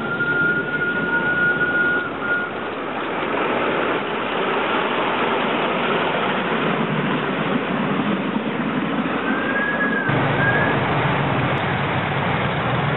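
Miniature ride-on trains running past on a garden railway, a steady rumble of small wheels on the rails. A single-note locomotive whistle sounds for about two and a half seconds at the start, and a second, shorter whistle comes near the end.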